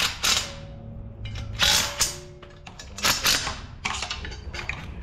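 Cordless power driver spinning bolts on a race engine block in several short bursts.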